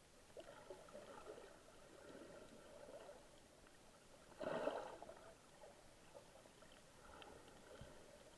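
Faint underwater water noise picked up by a submerged camera, with one brief louder rush of water about halfway through.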